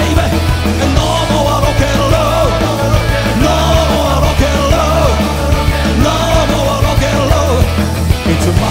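Rock band playing live, with a male lead vocalist singing over bass, drums, guitars and keyboards.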